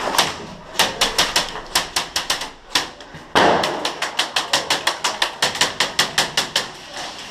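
Airsoft gun firing a rapid string of shots, about five sharp cracks a second, with a louder noisy burst about three and a half seconds in.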